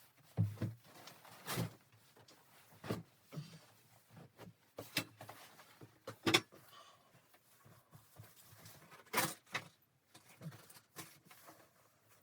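Irregular knocks, taps and rustles of objects being handled, about a dozen over several seconds, the loudest about six seconds in.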